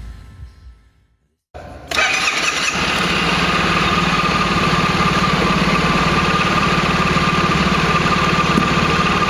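Suzuki Burgman scooter engine started on its electric starter: a brief crank about a second and a half in, catching at about two seconds, then idling steadily.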